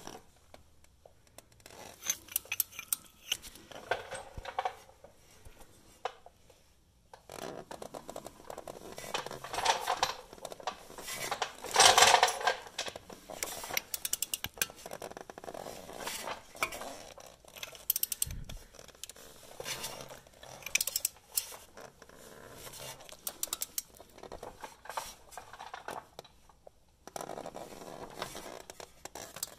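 3/8-inch-drive hand ratchet on a long extension clicking and clinking metal on metal in uneven bursts while working a front hub mounting bolt loose, loudest about halfway through.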